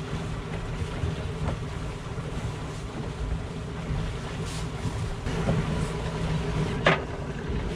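Twin outboard motors running steadily at slow trolling speed, a low rumble mixed with wind on the microphone and water moving past the boat. A single sharp knock sounds about seven seconds in.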